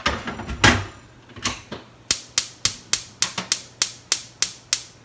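A few knocks and clatter, then a gas stove's spark igniter clicking quickly and evenly, about three to four clicks a second for nearly three seconds, as the grill burner is lit.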